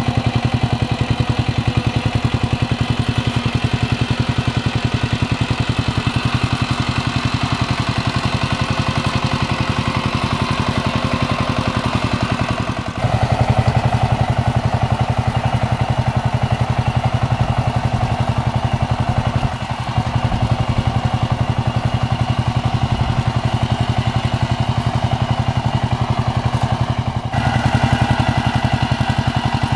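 Kamco walk-behind power tiller's single-cylinder diesel engine running steadily as it works, puddling a flooded rice paddy, with a fast, even chug. Its tone shifts abruptly twice, near the middle and near the end.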